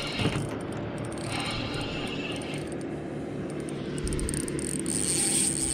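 Spinning reel being cranked against a hooked fish that pulls line off the drag, the drag buzzing in two spells, about a second in and again near the end.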